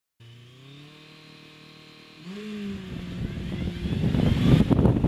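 2011 Kawasaki Z1000SX's inline-four engine held at steady revs, then launched hard from a standstill about two seconds in. The engine note jumps and holds while wind noise on the microphone rises quickly as the bike gathers speed.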